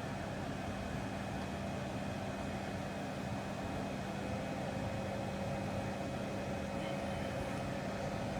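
Steady electrical hum and fan noise from amplifier test-bench equipment during an amplifier dyno power run. A faint higher tone joins about halfway.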